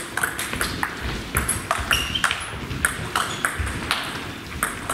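Celluloid-type table tennis ball clicking sharply off rubber bats and the table in a fast rally, with several short high squeaks of shoes on the hall floor.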